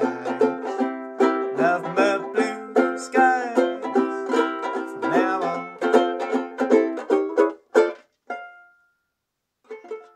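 Banjolele (banjo ukulele) strummed in quick chord strokes to end a tune. The strumming stops about eight seconds in on a last chord that rings on briefly, and a soft short strum follows near the end.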